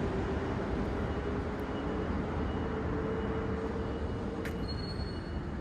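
Steady outdoor rumble of vehicle traffic, with a short click about four and a half seconds in.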